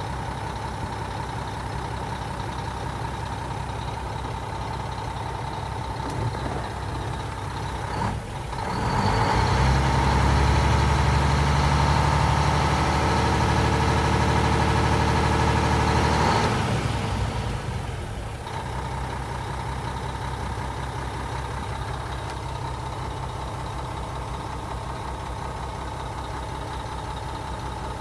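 1998 Mack CH613 tractor's diesel engine heard from inside the cab. It idles steadily, is revved up about eight seconds in and held at around 1,500 rpm for about seven seconds, then drops back to idle.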